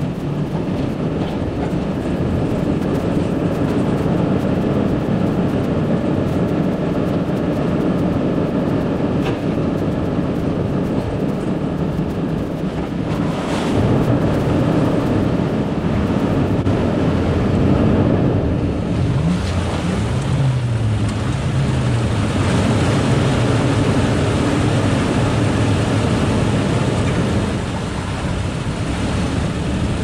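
Off-road vehicle driving slowly along a dirt trail: a steady engine and drivetrain rumble with tyre noise. The engine note rises and falls a few times about two-thirds of the way through.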